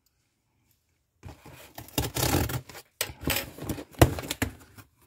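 A knife slitting the packing tape along a cardboard shipping box and the box being worked open, heard as bursts of scraping and tearing starting about a second in. There is a sharp click about four seconds in.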